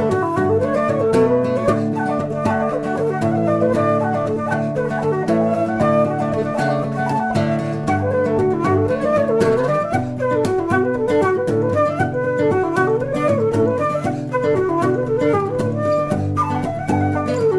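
Background music: a flute melody over plucked acoustic guitar.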